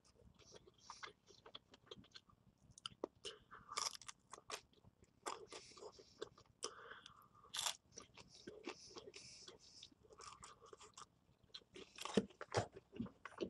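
A person biting into and chewing pizza close to the microphone: irregular crunching and wet mouth clicks.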